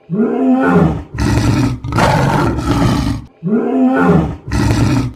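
Dinosaur roar sound effect: a growl that bends in pitch, followed by long rough roars. The same call starts over about three and a half seconds in.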